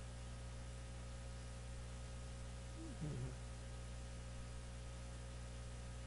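Steady low electrical hum and faint hiss from the recording setup, with one short murmured vocal sound, falling in pitch, about three seconds in.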